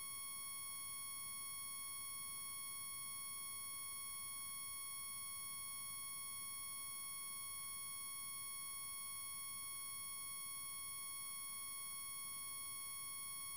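A steady, high-pitched electronic tone with overtones, holding one pitch without any change or break.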